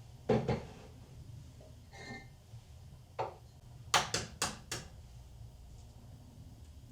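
Household handling sounds: a double knock near the start, a brief ringing clink about two seconds in, a single knock, then a quick run of four sharp clacks around four seconds in.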